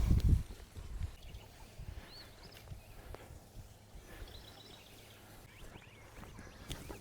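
A low thump and rustle right at the start, then a quiet outdoor stretch with a few faint, short, high bird chirps.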